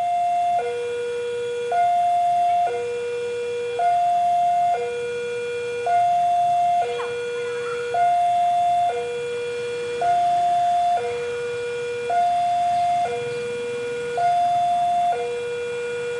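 Railroad level-crossing warning alarm sounding a repeating two-tone hi-lo pattern, about one second on each tone, with the higher tone louder. This is the signal that a train is approaching the crossing.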